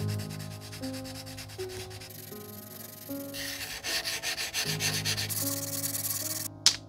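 Handheld whetstone rubbed back and forth along the steel blade of a Shun kiritsuke knife. The gritty scraping grows louder about halfway through, and there is a sharp tick near the end.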